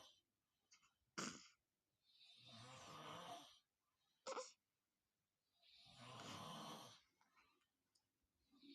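A man snoring in his sleep: long, rough snores of about a second and a half, roughly every three seconds, with a short sharp breath sound between some of them.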